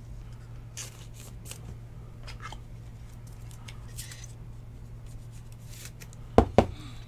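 Hands sliding a trading card into a rigid clear plastic top loader: light plastic scrapes and ticks, then two sharp knocks in quick succession a little after six seconds.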